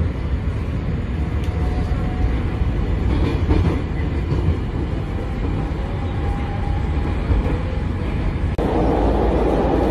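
Bucharest Metro train running between stations, heard from inside the carriage as a steady rumble of wheels and running gear. About eight and a half seconds in, it cuts abruptly to a louder, hissier stretch of train noise.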